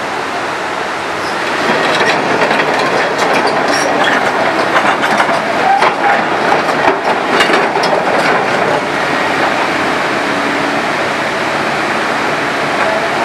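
Rushing floodwater over a stony riverbed, and from about two seconds in until about nine seconds a run of clanks and rattles as an excavator's steel bucket digs and splashes through the rocks in the water.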